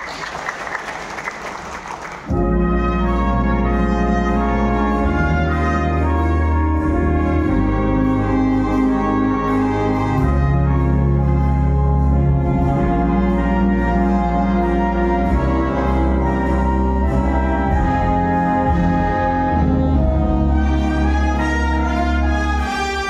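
Concert wind band of brass and woodwinds playing loudly, with sustained low bass notes under the melody. The music comes in suddenly about two seconds in, after a short stretch of noise.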